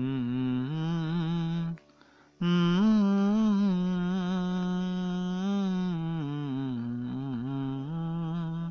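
A single voice humming a slow, wordless melody in long held notes: one short phrase, a brief break about two seconds in, then one long phrase.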